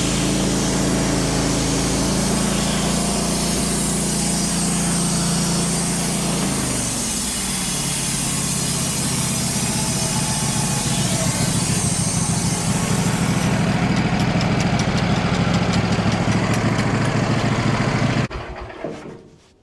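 Wood-Mizer LT15 portable bandsaw mill running, its pitch dropping about a third of the way through and the sound turning rougher, then shutting down suddenly near the end and fading away.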